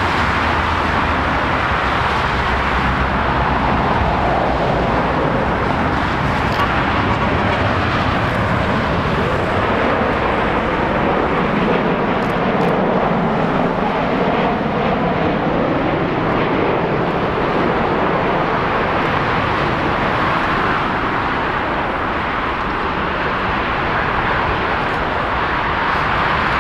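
Jet noise from a Boeing 737-800's two CFM56-7B turbofans as the airliner flies in on landing approach and rolls out on the runway: a steady, continuous roar.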